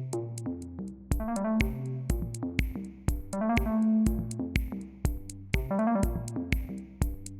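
Electronic background music: a drum-machine beat with a steady pulse under synthesizer chords.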